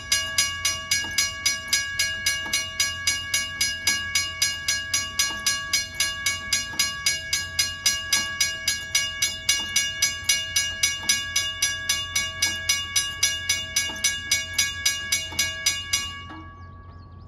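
Wigwag railroad crossing signal's bell ringing in rapid, even strokes, about three a second, with a ringing metallic tone. It stops suddenly about a second before the end as the signal shuts off.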